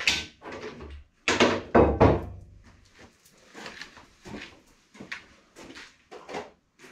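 Knocks and clatter of a saw chain and tools being handled and set down at a workbench, loudest in a cluster a second or so in, then lighter scattered taps and footsteps.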